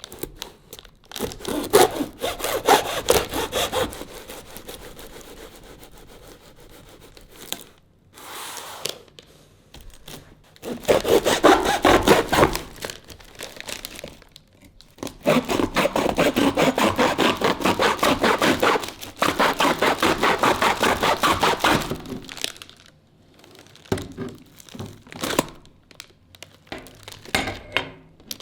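A saw cutting, in several runs of rapid strokes a few seconds long, the longest and steadiest near the middle with a short break.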